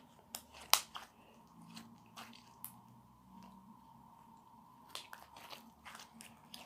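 Sticky homemade glue slime being pressed and pulled in the hands, giving scattered sharp clicks and crackles as it sticks and pulls away, the loudest about a second in.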